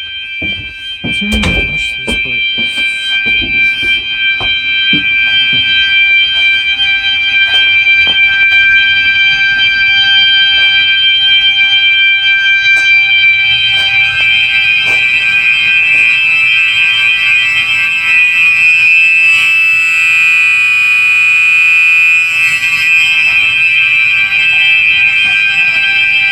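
Gentex and System Sensor fire alarm horns sounding together: a loud, steady, high-pitched electronic tone with several pitches at once, growing louder over the first several seconds and then holding. A few knocks come in the first two seconds.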